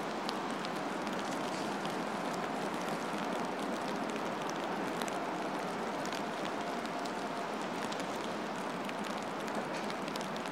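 Steady outdoor background hiss with faint scattered ticks, even in level throughout.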